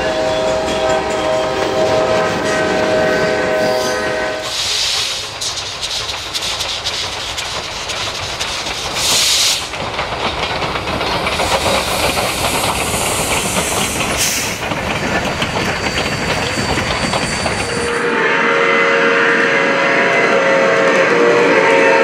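Real railway recordings: a train horn sounding a multi-note chord for the first four seconds, then a train rolling past with wheels clacking over the rails and several short bursts of hiss, and near the end another multi-note horn chord.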